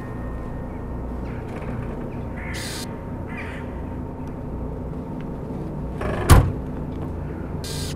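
Crows cawing a couple of times over a steady low outdoor drone. About six seconds in, the loudest sound: a single heavy thump of a car's trunk lid being slammed shut.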